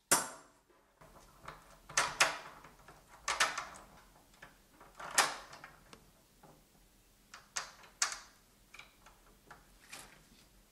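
Door hardware being worked: a sharp metallic clack as the letterbox flap snaps shut, then a run of clicks and knocks as the lock turns, and a final click as the lever handle is pressed down near the end.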